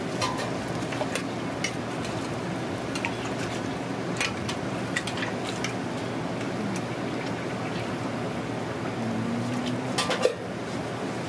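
Vegetable-and-noodle hotteok frying in hot oil on a flat griddle: steady sizzling with scattered sharp pops and clicks, a loud cluster of them near the end.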